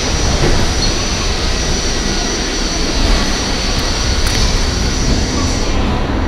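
R44 subway car running along the Staten Island Railway, heard from inside the car: a steady rumble of wheels on rail, with a constant high whine above it. The upper hiss dims near the end.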